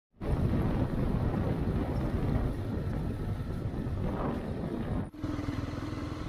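Motorcycle engine running while riding, with wind on the microphone. The sound breaks off for an instant about five seconds in, then carries on with a steadier hum.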